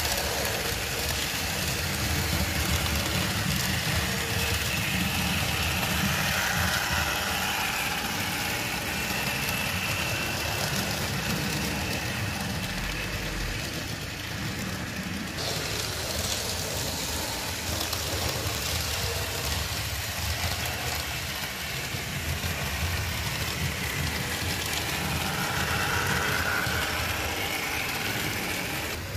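HO-scale model train running along the track: the locomotive's small electric motor hums steadily and the wheels roll on the rails. The high hiss dims a little about halfway through.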